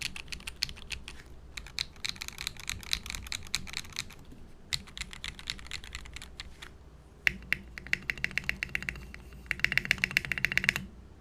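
Typing on a Rart75 LS custom mechanical keyboard, a leaf-spring sandwich-mount build with a brass plate and stacked acrylic case, fitted with lubed Jwick Yellow switches and PBT keycaps; the switches' clack is clearly heard. The keystrokes come in quick runs with short pauses, thin out around the middle, then turn into a fast, even run of brighter clicks from about seven seconds in that stops just before the end.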